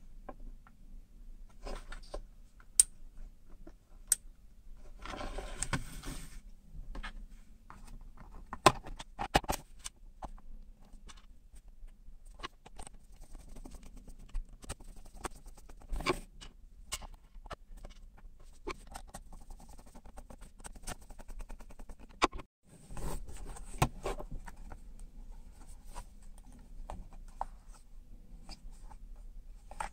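Handling noise from a small clear plastic project box: scattered clicks, taps and short scrapes of plastic as it is turned over and set down, with a screwdriver driving the lid screws partway through.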